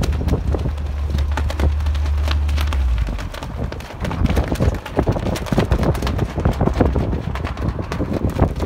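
Footsteps crunching on gravel, an irregular run of short steps, over a low steady rumble that drops away about three seconds in.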